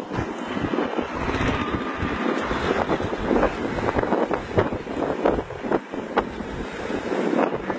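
Wind buffeting the microphone of a fast-moving bus, over steady road and engine noise.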